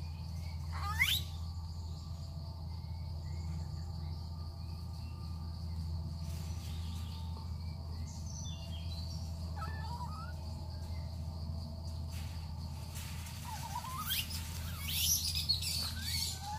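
Short high-pitched chirping calls over a steady low hum: a rising squeak about a second in, a few scattered chirps midway, and a quick run of squeaky calls near the end.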